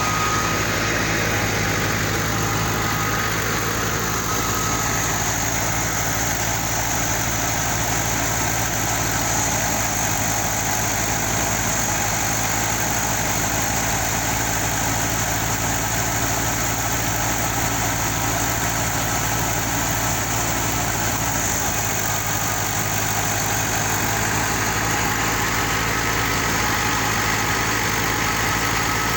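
Wheat thresher running steadily, with a constant engine drone and a faint high whine from the machine.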